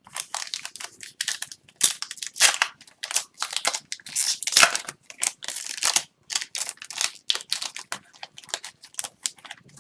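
Foil hockey card pack wrapper crinkling and rustling in the hands in quick, irregular scratchy strokes as a stubborn pack is worked open.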